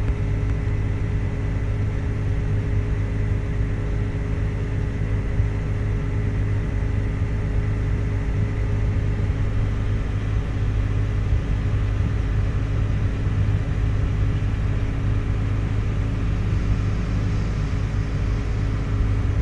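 Farm tractor engine running steadily, heard from inside the cab as an even low hum with a few steady tones.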